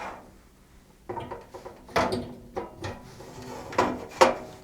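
Parts being handled and fitted into a computer case: a series of knocks, clicks and short sliding scrapes, with the sharpest knocks about two seconds in and just after four seconds in.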